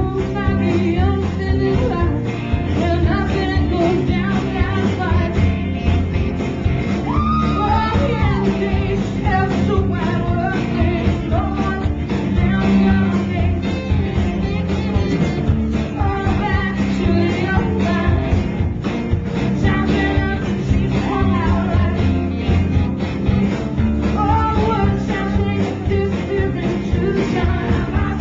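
Live rock band playing a song with lead vocals over electric guitars and a drum kit, loud and full, heard from the audience through a small camcorder's microphone.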